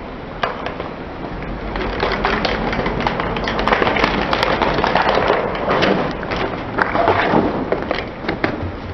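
Car tyre rolling slowly over hollow plastic toys and a row of plastic clothes pegs, crushing them: a run of sharp plastic cracks and snaps, densest through the middle, over the steady noise of the car.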